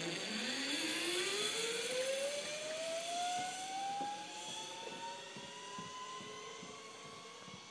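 Zipline trolley pulleys running along the cable as a rider sets off: a whine that rises steadily in pitch as the trolley picks up speed. It is loudest in the first few seconds, then fades as the rider travels away.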